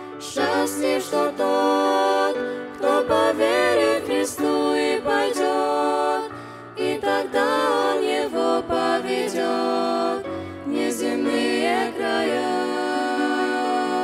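A vocal trio, two girls and a teenage boy, singing a Russian-language Christian song in harmony into microphones. The phrases are separated by brief pauses.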